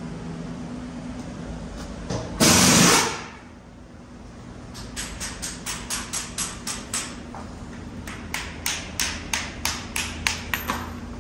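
Pneumatic tool worked at a car's front wheel: one loud burst lasting under a second, about two and a half seconds in, then a run of short sharp knocks, several a second, through the second half.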